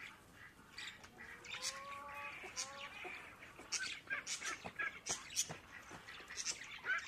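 Muscovy-cross ducklings dabbling and splashing in a metal pot of water, with many short sharp clicks, a few high peeps, and a longer drawn-out call from about a second and a half in until about three seconds in.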